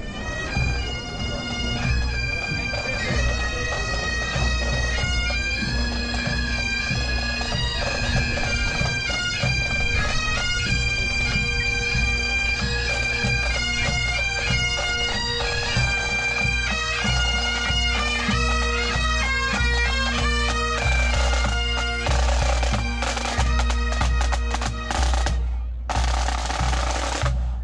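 Bagpipes playing a tune over their steady drone, with drums coming in hard about three quarters of the way through.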